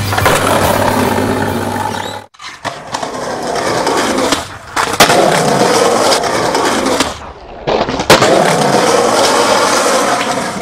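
Skateboard wheels rolling over pavement, the rolling pitch rising and falling with speed, with sharp knocks of the board on the ground about five and eight seconds in.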